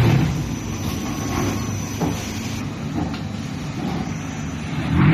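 Concrete block-making machine line running: a steady mechanical rumble, with a couple of short metal clunks about two and three seconds in.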